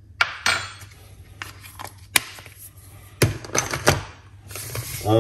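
Measuring spoon and spice jars handled while ground spices go into a bowl of flour: a few sharp taps and clicks, the loudest about two seconds in and two more a little after three seconds, with light rustling between.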